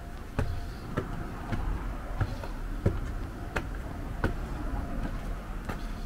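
Footsteps climbing concrete overpass stairs edged with metal nosing strips, an even tread of about a step and a half per second.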